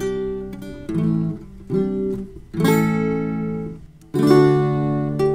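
Background music on guitar: chords strummed one at a time and left to ring, with brief gaps between them, the loudest just after four seconds in.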